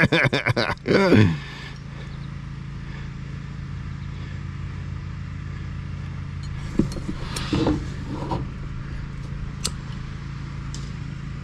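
Heat gun running steadily, its fan motor humming under a rush of air, to shrink heat-shrink tubing over a spliced wire. A few light handling clicks come through about two thirds of the way in.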